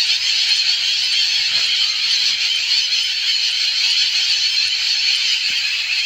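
A steady, high-pitched hiss with no breaks or changes.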